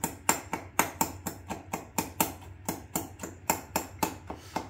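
Fork knocking repeatedly against the inside of a mug as Oreo biscuits are mashed up with a little milk, a steady run of sharp knocks about four or five a second.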